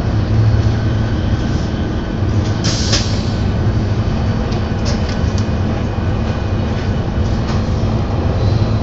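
Interior running noise of a TGV Duplex high-speed train at speed: a steady low hum and rumble under a continuous rush, with a brief hiss about three seconds in.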